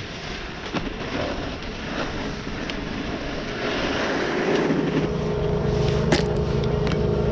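Snowboard sliding and scraping over packed snow with wind on the microphone, slowing to a stop; from about halfway a steady mechanical hum sets in, like a chairlift drive, and a sharp click sounds near the end as a binding is undone.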